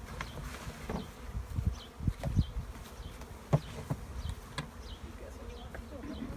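Honey bees buzzing in flight, single bees passing close by one after another. A sharp tap comes about three and a half seconds in.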